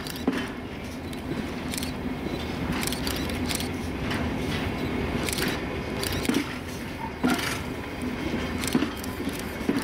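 Train of flat freight wagons and a Talgo Avril trainset rolling slowly along yard track: irregular clicks and clanks of wheels and couplings over rail joints, over a steady low hum.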